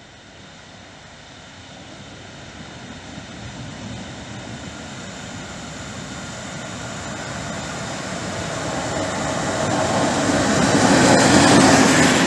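Electric locomotive hauling a passenger train on its approach, a steady rumble that grows gradually louder as it draws near and peaks as the locomotive passes close near the end.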